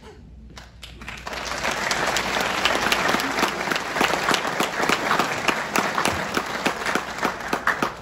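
Audience applauding: a dense clatter of many hands clapping that builds about a second in and dies away near the end.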